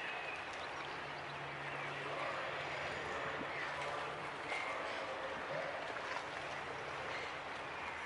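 Steady harbourside background: a hiss of water and wind under a low boat-engine hum that comes and goes.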